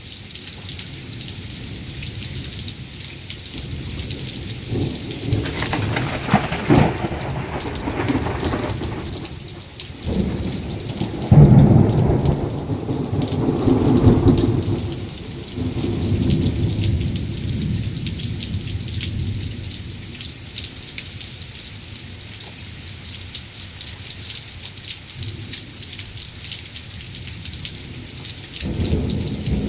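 Heavy rain falling steadily, with thunder: a crackling rumble builds about five seconds in, a loud clap comes near the middle and rumbles on for several seconds, and another rumble starts near the end.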